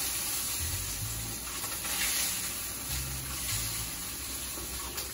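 Tilefish frying in a hot pan, a steady sizzle.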